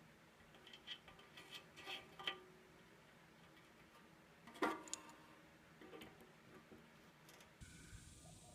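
Faint scattered clicks and light clinks, with one louder clink about four and a half seconds in that rings briefly.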